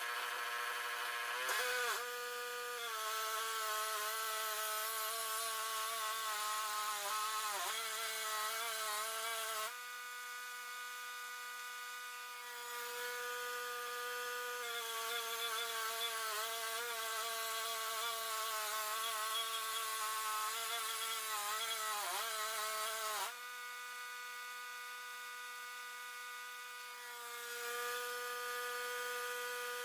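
Wood-Mizer LT10 portable bandsaw mill running with its band blade cutting through a black walnut log. It makes a steady whine that dips in pitch now and then as the saw works under load. It eases off about ten seconds in and again past twenty seconds, then picks up near the end.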